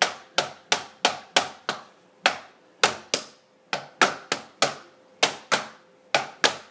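Hand drumming: sharp, separate hits on a hard surface in an uneven rhythm, about two to three a second.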